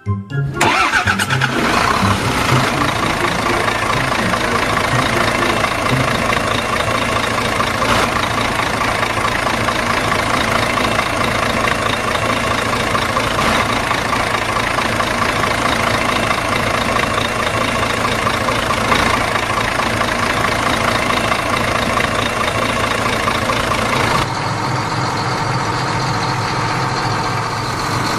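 An engine starts abruptly and keeps running steadily. About 24 seconds in its sound shifts to a lower, more even tone.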